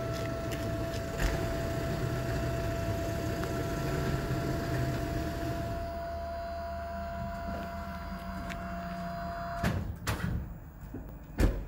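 BÄR 1500 kg hydraulic truck tail lift running with a steady whine and hum as its platform folds down from upright to level. Then two sharp clunks near the end, the second louder.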